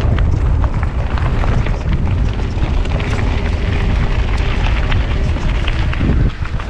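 Wind buffeting the microphone and mountain bike tyres rumbling over a dirt singletrack on a descent, with scattered clicks and rattles from the bike over rough ground.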